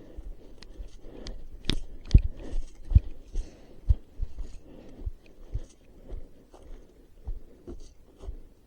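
Irregular crunching, rustling and knocking of a person moving through dry undergrowth, with a sharp click a little under two seconds in and a few heavier thumps soon after.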